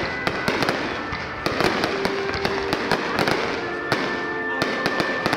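Fireworks display: aerial shells bursting, with many sharp bangs and pops in quick, irregular clusters.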